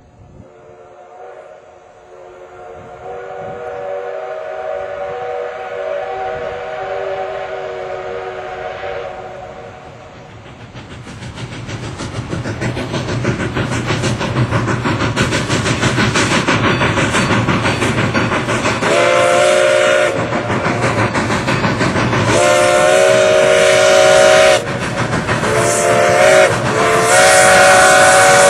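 2-8-0 Consolidation steam locomotive No. 40 approaching at speed under load. It opens with one long chime-whistle blast. From about ten seconds in, its rapid exhaust beats grow steadily louder as it nears, with a low rumble of the train. Near the end the whistle sounds long, long, short, long: the grade-crossing signal.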